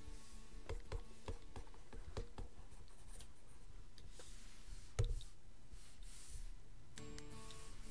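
Stylus tapping and stroking on a drawing tablet: scattered light taps and soft scratchy strokes, with one louder tap about five seconds in.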